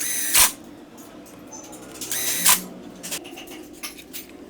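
Hand-tool work on a motorcycle engine: two short rasping scrapes, just after the start and about two seconds in, each ending in a sharp click.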